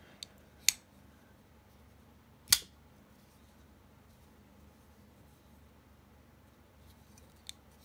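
Steel Will Tenet washer-pivot folding knife being flipped open and shut: sharp snaps of the blade, loud ones about a second in and two and a half seconds in and again at the very end, with a few faint ticks between.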